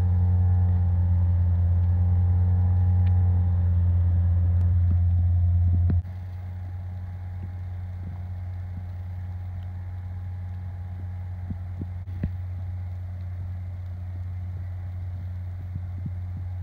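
Idling vehicle engine: a steady low hum that drops in level about six seconds in, with a few faint clicks.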